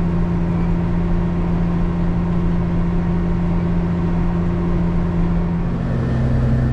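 Diesel engine of harvest machinery running steadily, its pitch stepping down about six seconds in as the engine slows.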